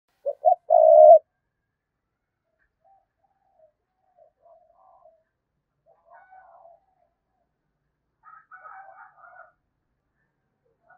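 Spotted dove cooing: one loud phrase of two short coos and a longer held coo at the start, followed by faint, softer cooing notes over the next several seconds. It is a decoy male's cooing, of the kind used to draw in wild doves.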